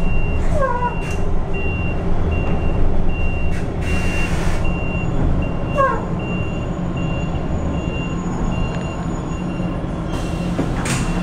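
RAC EV 150 electric bus's warning beeper sounding a high repeating beep, about one and a half a second, over the low rumble of the moving bus; the beeping stops about ten seconds in. A short hiss comes about four seconds in.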